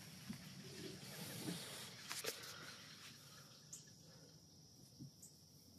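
Faint outdoor background hiss with a few soft clicks and knocks, a couple about two seconds in and one more near the end.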